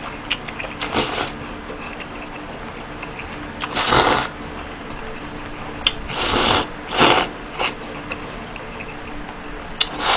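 A person slurping cold noodles in broth from a bowl: a handful of short, noisy slurps, the loudest about four seconds in and a quick run of three between six and eight seconds.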